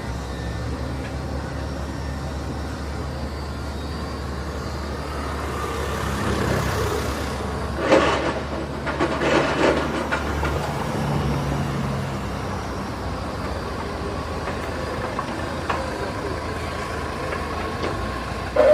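A large vehicle's low, steady rumble, with a few louder sudden sounds about eight to ten seconds in.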